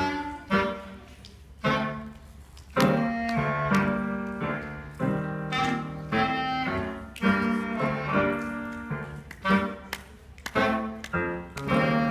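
Clarinet playing a melody as a series of separate notes, with what sounds like piano accompaniment; the notes start sharply and fade away.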